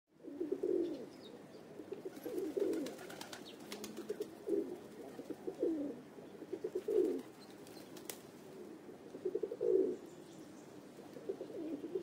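Pigeons cooing: short low calls repeated every second or two, with a few faint high chirps between them.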